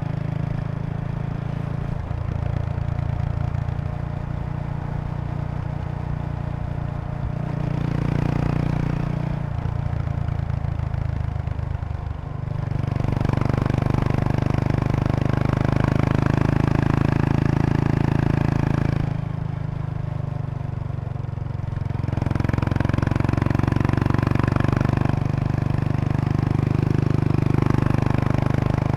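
Single-cylinder engine of a 2003 Kawasaki Estrella RS with a Yamato aftermarket muffler, running on the move at an easy pace. The exhaust note swells as the throttle opens about halfway through and again near the end, and falls back off throttle in between.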